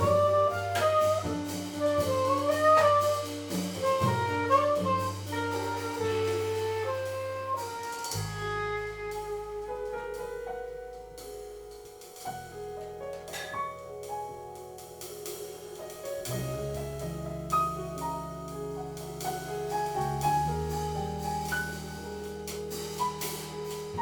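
Jazz quartet playing live: a saxophone line over piano, double bass and drums with cymbals. The music gets quieter about eight seconds in.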